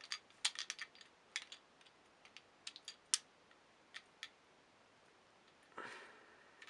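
Light clicks and taps of small toy train engines being handled, a quick cluster in the first three seconds, then a few more, with a soft rustle near the end.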